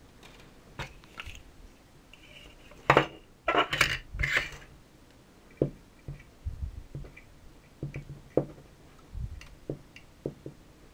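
Solid-core hookup wire being handled and cut to length with side cutters: a cluster of loud rustling scrapes about three to four and a half seconds in, then scattered sharp clicks and taps.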